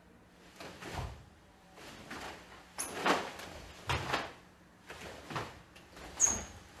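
Barefoot karate kata on a stage floor: sharp swishes and snaps of the cotton gi with each strike, and thuds and slides of bare feet stepping and turning, coming roughly once a second. There are two brief high squeaks, one about three seconds in and one near the end.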